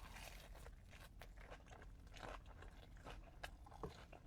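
Faint crunchy chewing of a Korean corn dog, with irregular crackles.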